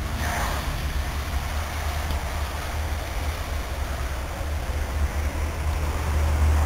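Steady low rumble with a faint hiss above it, swelling a little near the end.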